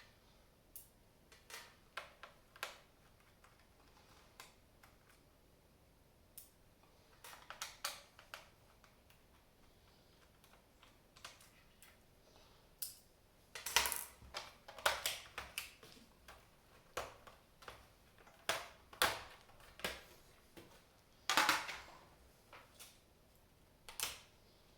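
Irregular clicks, taps and knocks of plastic and metal as a Toshiba L50-B laptop is handled while its RAM stick is changed. The clicks come sparsely at first and grow louder and more frequent about halfway through.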